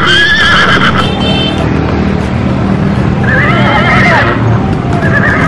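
An agitated delman cart horse whinnying twice: a long wavering call right at the start and another about three seconds in, over a steady low hum.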